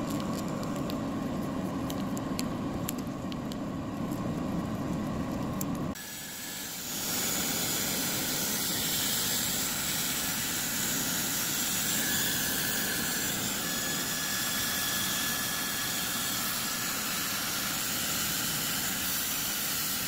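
Dyson hair dryer blowing: a steady rush of air with a faint high whine. Before that there is a low steady noise with soft wet clicks of a dog licking a treat, and about six seconds in the sound changes abruptly to the dryer.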